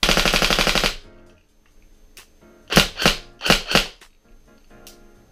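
Tokyo Marui M4A1 recoil electric airsoft rifle firing a rapid full-auto burst about a second long, then several single shots, each a sharp mechanical clack.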